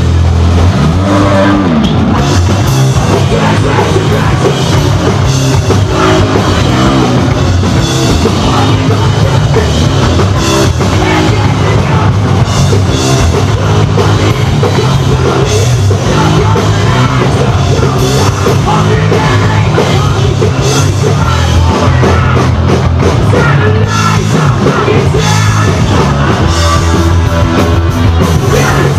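Hardcore punk band playing live at full volume: distorted electric guitar, electric bass and a drum kit, in a steady heavy rhythm without a break.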